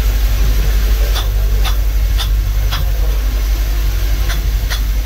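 Hammer striking a freshly cast metal tractor hub in the foundry sand: sharp metallic knocks, four about half a second apart, then two more near the end. Under them runs a steady low machine drone.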